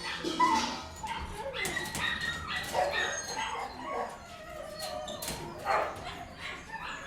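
Many kennelled dogs barking, yipping and whimpering at once, their short calls overlapping without a break.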